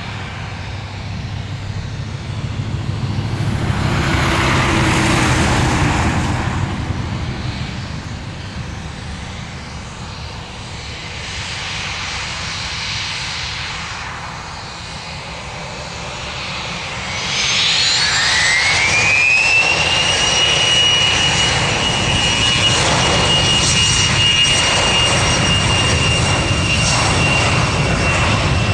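Cessna Citation X business jet's twin Rolls-Royce AE3007 turbofans: a steady jet rumble while taxiing onto the runway, swelling and easing in the first few seconds. About two-thirds of the way through, the engines spool up to takeoff thrust with a rising whine that levels into a steady high whistle, and the noise grows louder as the takeoff roll begins.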